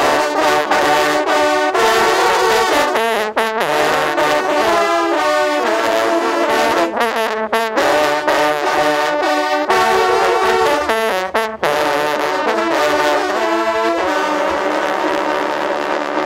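Ensemble of French hunting horns (trompes de chasse), valveless coiled horns, playing a hunting fanfare: loud, bright brass notes in quick-changing phrases with a few short breaks between them.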